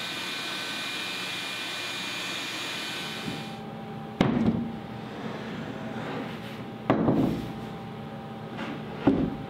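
Shop vacuum running steadily with a whine as it sucks up sawdust, cutting off about three and a half seconds in. Then three hollow wooden knocks and scrapes, a few seconds apart, as the large plywood bowl is tipped up on its plywood jig.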